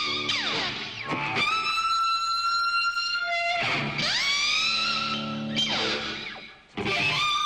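Background music: an electric guitar playing sustained notes with sweeping pitch slides and bends, dropping out briefly near the end.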